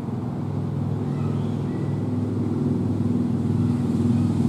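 A motor vehicle engine running, a steady low hum that grows steadily louder as it draws closer.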